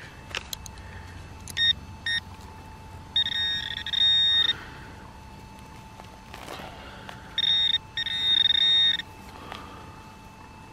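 Metal detector's audio signal responding to a buried target: two short beeps, then a longer tone, and two more long tones near the end, over a faint steady hum. The signal sounds a bit cackish, the tone of a junk target.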